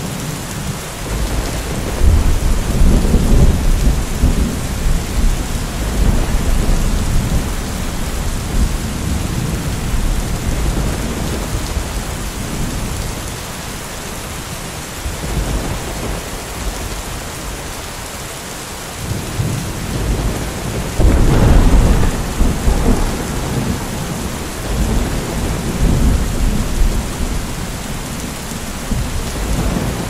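Thunderstorm: steady rain with two long rolls of thunder, one building about two seconds in and fading over several seconds, and a louder one breaking about two-thirds of the way through.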